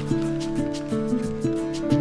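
Background music with a steady beat and held notes that change about every half second.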